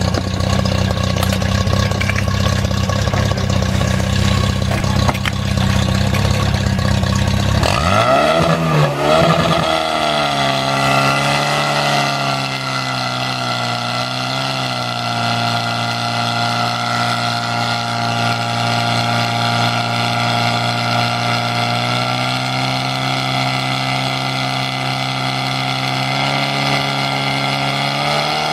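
Portable fire pump's engine running low, then revved up about eight seconds in and held at high, steady revs while pumping water out through the hoses.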